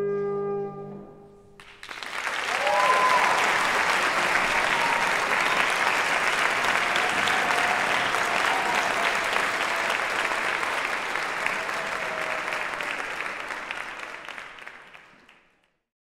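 French horn, tuba and trombone trio holding a final sustained chord, released about two seconds in. Audience applause follows at once and fades out near the end.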